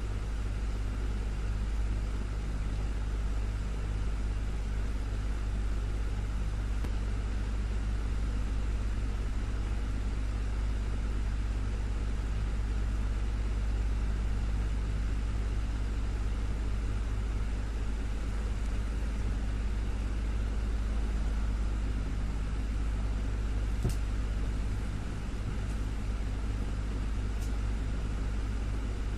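Desktop fan running steadily: a low motor hum under an even rush of air.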